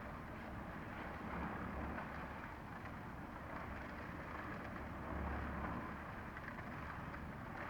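Steady outdoor background noise with a low engine-like rumble that swells and eases, without distinct knocks or voices.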